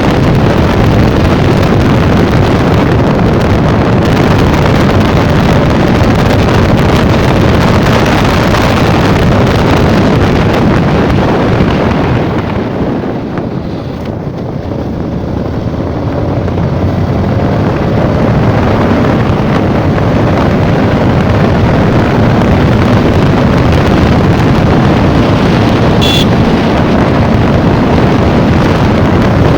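Wind rushing over the microphone on a moving Yamaha MT-15 motorcycle, with the engine running underneath. The rush eases for a few seconds around the middle, as if the bike slows, then builds back up.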